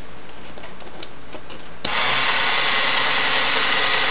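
A battery-powered toy jacuzzi tub's small motor switches on just under two seconds in, after a few faint clicks as the tub is pressed, and runs with a steady buzzing whir.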